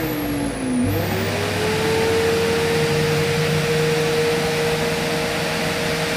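Bosch corded electric drill running at speed in a bench drill stand, fed down onto a small metal strip. Its motor whine sags in pitch about a second in and then recovers to a steady, even pitch.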